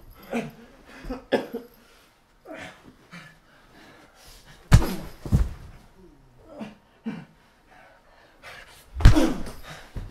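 Scuffle of a staged fight on a carpeted floor: scattered thuds and knocks with short grunts and breaths, and two heavy impacts, one about five seconds in and one near the end.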